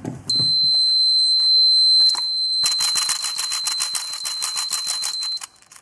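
Homemade low-primer alarm buzzer sounding one steady, high-pitched tone, which means the infrared beam is crossing the empty primer chute. About two and a half seconds in, a fast, even rattle of primers in the press's primer tray joins it, about six clicks a second. The tone cuts off near the end, when the primers fill the chute and block the beam.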